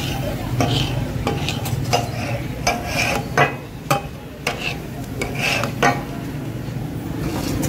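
Flat metal spatulas scraping and clinking on a hot iron tawa griddle as a masala-coated chicken leg piece is pressed and turned, with frying sizzle underneath. The strikes are sharp and irregular, a few each second, over a steady low hum.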